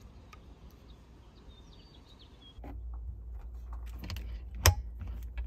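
Quiet outdoor background with faint bird chirps. After a cut, a low steady rumble comes in with small handling clicks as a hand works at the fuse on the RV battery cable. One sharp click near the end comes as the fuse is disconnected.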